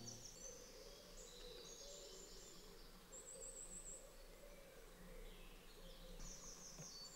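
Faint birdsong in woodland: short high chirps and trills repeating through the quiet.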